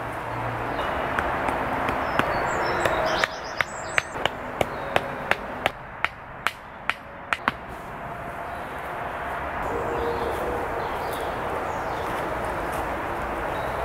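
A hammer driving wooden branch stakes into the ground. There are about a dozen sharp knocks, roughly three a second, starting a few seconds in.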